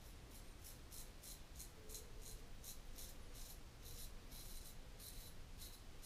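Portland Razor Co. Sprite straight razor scraping through lathered stubble on the second pass, in short quick strokes about three a second, one a little longer about four and a half seconds in. Faint.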